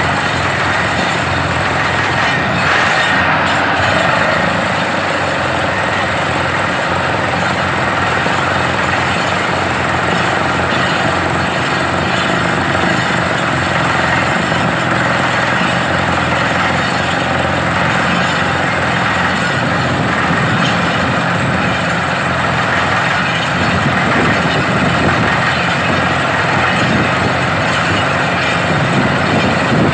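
Borewell drilling rig running steadily, a loud continuous mechanical noise.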